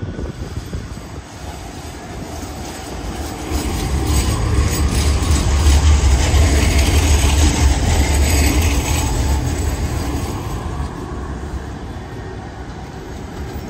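A tram passing close by on street rails: a low rumble with wheel-on-rail noise builds, peaks about five to nine seconds in, then fades away.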